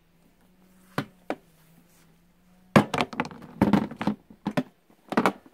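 Welding cables and their metal clamps being picked up and handled on a plastic table: two sharp knocks about a second in, then a loud run of knocks and clatter, and a last short clatter near the end.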